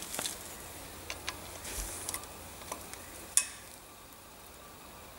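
Light metallic clicks and taps of hand tools on the front hub as its bolts are tightened with a torque wrench, a bar across the wheel studs holding the hub still. One sharper, louder click comes about three and a half seconds in.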